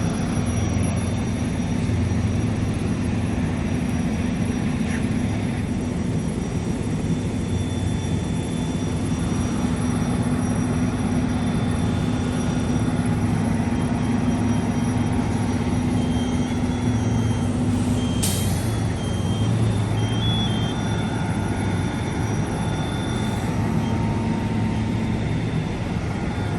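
A heavy fire truck's engine runs steadily with a low hum. About 18 s in there is a short hiss, and around it a short series of high electronic beeps.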